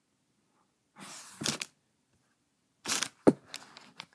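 Handling noises as toys are moved about: two short bursts of rustling with sharp clicks, about a second in and about three seconds in, the second with one loud click followed by a few fainter ones.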